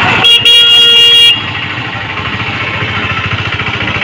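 A vehicle horn sounds, a short toot and then a held blast of about a second. Under it and after it a motorcycle engine runs as the bike rides through floodwater.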